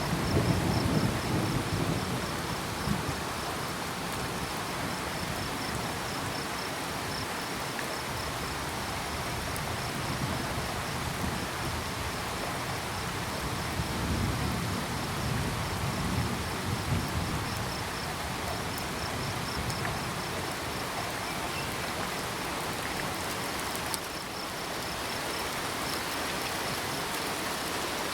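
Steady rain falling, with crickets chirping in an even pulsing rhythm. Low rumbles of thunder swell at the start and again around the middle.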